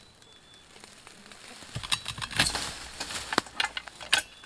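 Hand-lever T-post puller working a steel T-post out of the ground: a run of metal clicks and knocks, steel on steel, starting about two seconds in.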